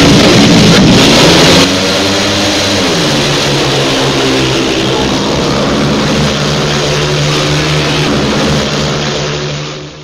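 Engine revving: loud at first, then its pitch rises and falls before it holds a steady note and fades out near the end.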